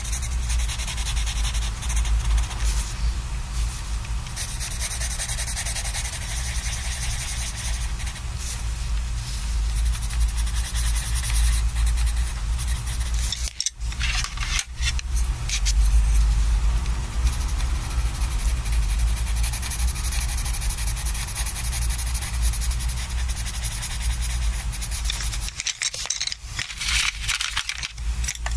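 Coloured pencil rubbing and scratching on sketchbook paper as an area is shaded in, a continuous scratchy scrubbing with short breaks about halfway through and near the end.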